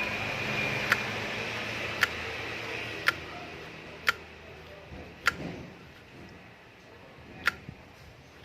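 Sharp clicks from a fishing reel being worked by hand, about one a second at uneven intervals, over a low hum that fades out about halfway through.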